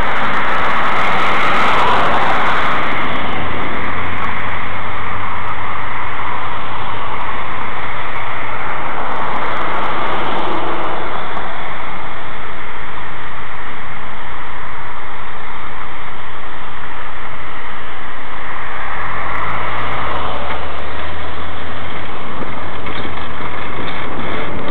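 Street traffic heard from a moving electric bike: a steady, loud rush of road and wind noise with car engines, and a low engine hum climbing in pitch about nineteen seconds in.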